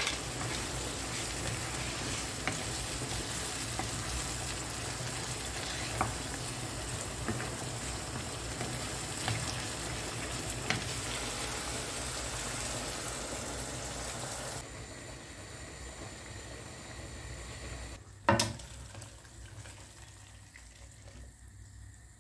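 Food sizzling in a hot pan, with a few light taps as it is stirred. The sizzle drops off sharply about fifteen seconds in, and a single sharp knock comes a few seconds later.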